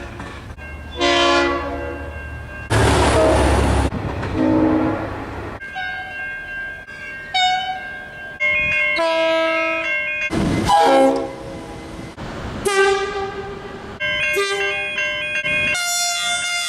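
Train air horns sounding in a string of separate blasts, some short and some held, in several different chords one after another. A loud rush of passing train noise cuts in about three seconds in, and again briefly around ten seconds in.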